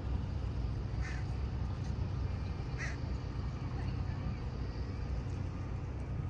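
Two short, harsh bird calls, about a second in and again about three seconds in, over a steady low rumble.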